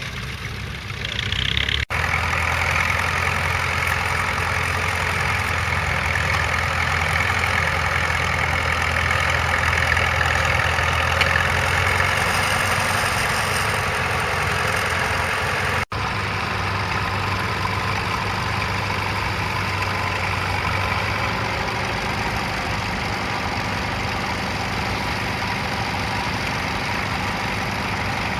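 Crawler tractor engine running steadily while ploughing, with the sound cutting out abruptly twice, about two seconds in and about halfway through.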